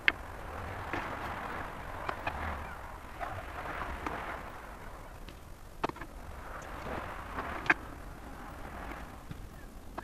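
Kitchen knife knocking and scraping on a wooden cutting board while merguez skins are cut away, a few sharp knocks over a soft rustling noise.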